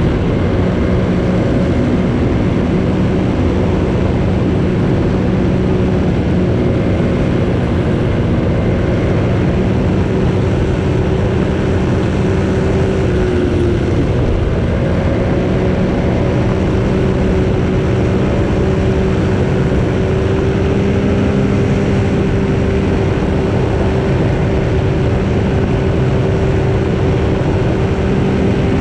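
Motorcycle engine pulling at a steady cruising speed on a highway climb, with heavy wind and road noise. The engine note dips briefly about halfway through, then holds steady again.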